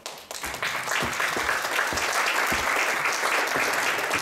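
Audience applauding, building quickly from a few claps to steady clapping.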